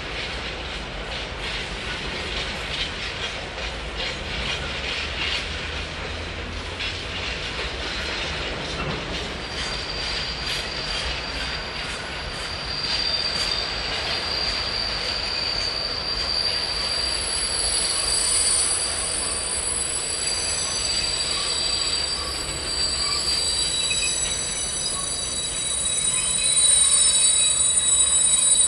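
A slow freight train of tank wagons rolling past, its wheels clicking rhythmically over rail joints. From about ten seconds in, the wagons' wheels give a steady high-pitched squeal that grows louder toward the end as the train slows into the station.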